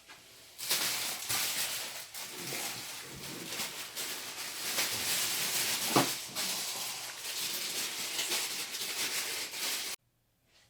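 Packaging rustling and scraping as a computer monitor is unpacked from its box, with one sharp louder crack about six seconds in; the sound cuts off abruptly near the end.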